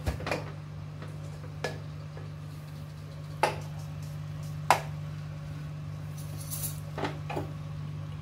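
Metal clanks and knocks from an aluminium pressure cooker as its lid is opened and handled once the pressure cooking is done, about half a dozen sharp knocks spread out, the loudest a little before the middle. A steady low hum runs underneath.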